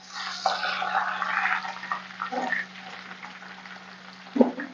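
Chopped garlic sizzling in hot oil in an aluminium kadhai, stirred with a flat metal spatula; the sizzle is loudest for the first couple of seconds, then dies down.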